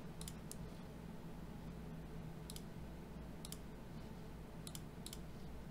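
Computer mouse buttons clicking: about eight faint, sharp clicks at irregular intervals, a few close together near the start, over a faint low hum.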